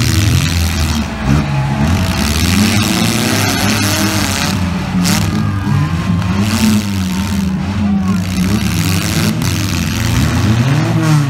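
Several demolition derby cars' engines running and revving, their pitch rising and falling continuously.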